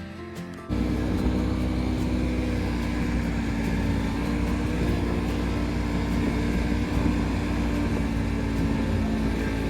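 Snowmobile engine running at a steady speed, a constant drone with a strong low rumble, cutting in abruptly about a second in.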